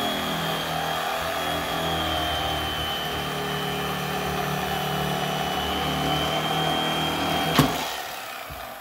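Corded electric fillet knife running with a steady high whine as it slices a crappie fillet. Near the end there is a click, and the motor winds down as the knife is switched off.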